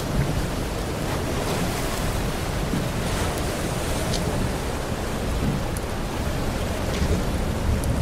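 Continuous rushing water ambience with a deep rumble underneath and a few faint ticks.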